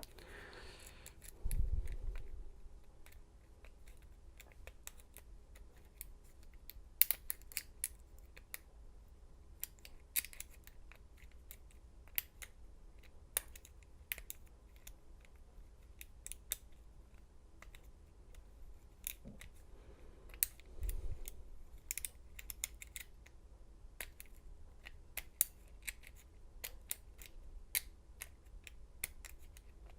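Lock picking in a Schlage deadbolt's pin-tumbler cylinder: faint, irregular small metallic clicks and ticks of the pick working the pins against the tension wrench. There is a dull thump near the start and another about two-thirds of the way through.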